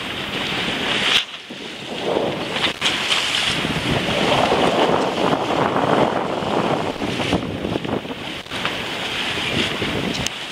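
Wind buffeting the microphone over the rush of sea water past the hull of a sailing boat under way, surging unevenly in gusts, with a brief dip about a second in.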